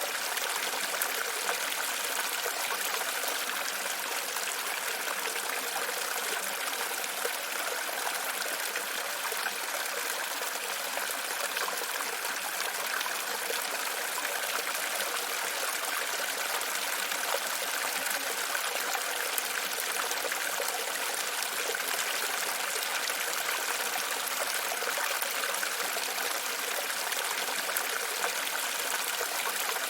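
Water flowing and trickling steadily, an even, unbroken rush with no change throughout.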